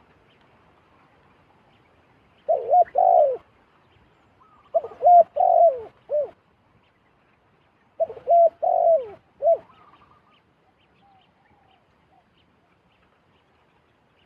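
A dove cooing: three phrases of several short, arched coos each, a couple of seconds apart.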